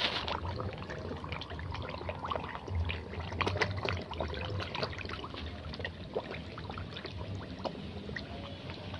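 A crowd of koi splashing and churning at the pond surface as they jostle for food: a dense, continuous run of small sharp splashes over a steady wash of water.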